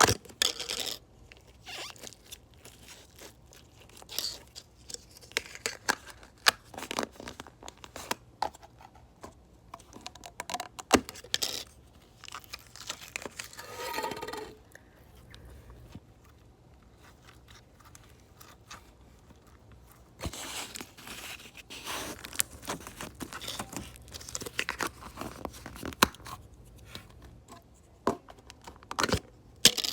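Slime being squeezed and stretched by hand, making irregular crackles and clicks in bursts, with one longer sound near the middle.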